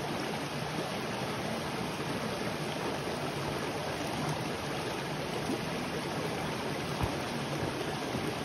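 Small rocky brook running steadily over little cascades between boulders, a continuous even rush of water. One brief low thump about seven seconds in.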